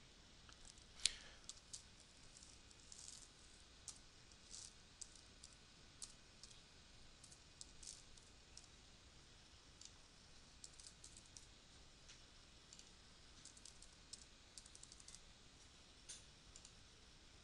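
Faint clicking of computer keyboard keys as text is typed in short runs, with a louder single click about a second in.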